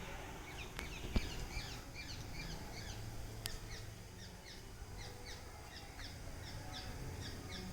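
Small birds chirping: a dense, continuous run of short, high, downward-sliding notes from several birds at once, with a few sharp clicks about one and three and a half seconds in.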